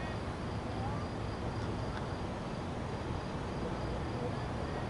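Insects chirping in a faint, even high trill over a steady low rumble from the M7 electric train at the station.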